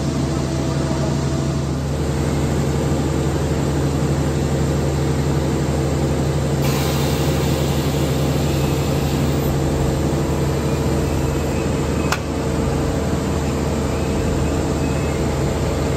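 Plastic pipe cutting machine on a pipe production line running steadily, its electric motors giving a constant low hum with a few steady tones over a factory din. The hiss grows brighter suddenly about seven seconds in, and there is a single sharp click about twelve seconds in.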